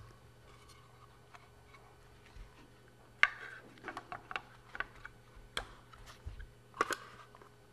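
Light, scattered clicks and knocks of an AR-15 barreled upper receiver being set into a vise block, the insert fitted and the vise tightened. The sharpest knock comes about three seconds in, followed by a handful of lighter ticks.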